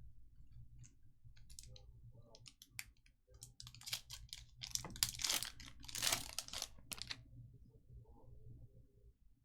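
Trading card pack and cards being handled: a run of clicks and crinkling of the foil wrapper, densest in the middle, then tapering off.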